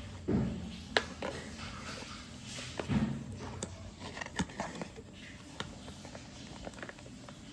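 Box and packaging being handled during an unboxing: scattered clicks, taps and light knocks, with duller thumps near the start and about three seconds in.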